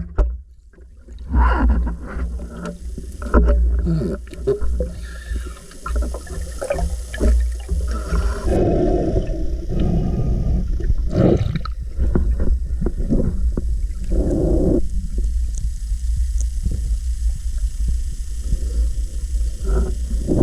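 Muffled underwater sound of water moving and gurgling, with a steady low rumble and irregular knocks and scrapes.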